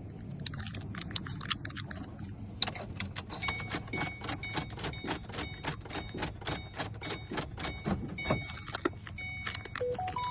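Car keys jangling on their ring at a 2006 Ford Mustang's ignition, with a fast, even run of clicks during a remote-programming attempt. Short electronic beeps sound near the end.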